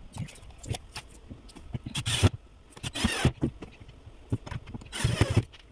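Wooden boards being handled on a workbench: a few short bursts of scraping and rubbing, with light knocks of wood on wood in between.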